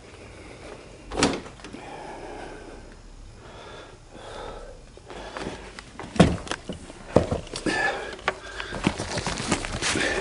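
Knocks and clunks of hands working on the car: a sharp knock about a second in, a louder clunk about six seconds in, then a run of small clicks and rattles toward the end.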